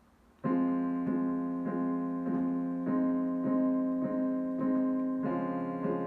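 Piano starting about half a second in, playing a slow, even pattern of repeated notes over held harmony, about one stroke every 0.6 seconds, moving to a new chord about five seconds in.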